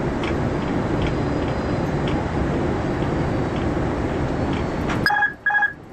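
Steady rushing noise of airflow and engines inside an Airbus A330 cockpit on final approach. Near the end the noise suddenly drops away and two short beeps sound about half a second apart.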